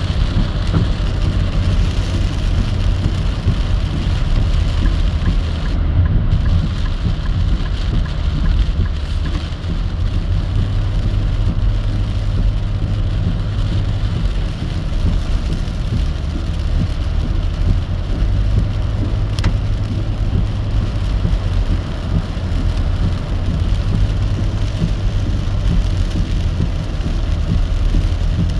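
Heavy rain on a moving car, a steady hiss over a constant low rumble of the car on the road.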